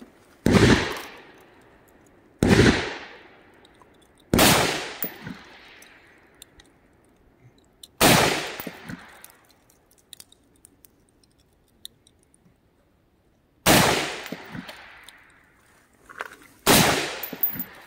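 Six single shots from an AR-15 rifle, fired slowly at uneven gaps, each sharp crack trailing off in a long echo.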